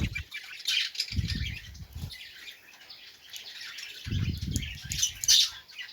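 Birds chirping in short high calls, with two dull, muffled rumbling noises, one about a second in and one about four seconds in.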